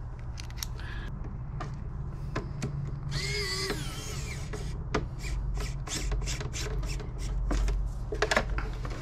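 Cordless electric precision screwdriver whirring as it drives a Torx screw: a whine about three seconds in that sags a little in pitch under load, a low motor hum that grows louder later, and a run of small clicks and taps from the bit and the parts.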